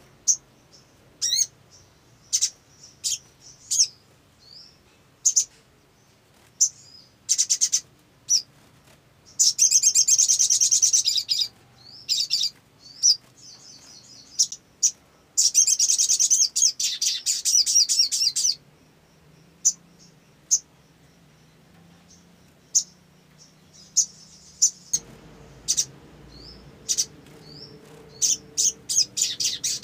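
Male olive-backed sunbird calling: sharp, high single chips about a second apart, broken by several fast trilling song bursts lasting two to three seconds each.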